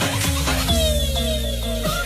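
Electronic dance music from a DJ mix: a heavy held bass with synth lines gliding down in pitch, about a second into a sparser breakdown passage.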